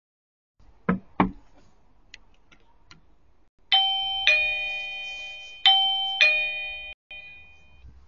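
Two short knocks about a second in. Then a Eufy video doorbell's electronic two-note ding-dong chime sounds twice in quick succession, each note ringing and fading, as the button is pressed.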